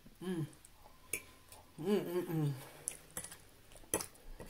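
A person eating: two short hummed "mmm" sounds of enjoyment while chewing, one just after the start and a longer one about two seconds in. A metal fork clicks against the plate a few times, the sharpest clicks near the end.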